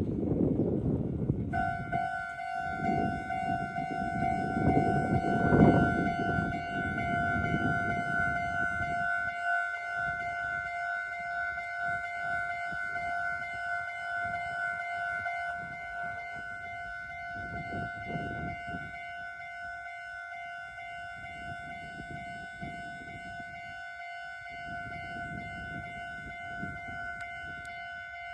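Japanese railway level crossing's electronic alarm ringing its 'kan-kan' warning. It starts about a second and a half in and keeps ringing steadily, over a low rumbling noise that peaks around five seconds in and dies away by about ten seconds.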